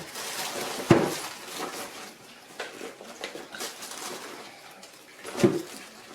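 Hard objects being handled and set down: a sharp knock about a second in and another near the end, with light clicks and clatter between.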